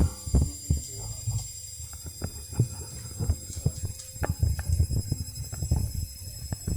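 Candy washing machine spinning its load, with a steady low drum rumble and frequent, irregular knocks and rattles.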